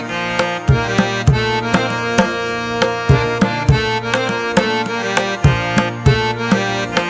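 Background instrumental music with a steady drum beat of about two strikes a second under sustained melodic tones.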